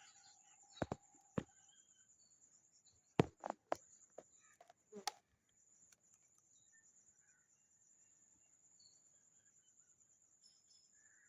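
Several short faint knocks and clicks, two at about a second in and a cluster around three to five seconds, over a faint steady high-pitched whine; then little but the whine.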